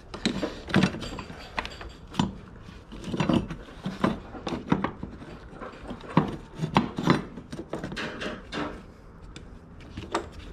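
Irregular clicks, knocks and rubbing of a plastic fuel pump module and its lock ring being handled and worked into the top of a fuel tank by gloved hands.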